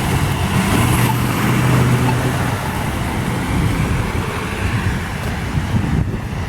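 Rain falling and dripping as a steady hiss, with a low hum that comes and goes underneath.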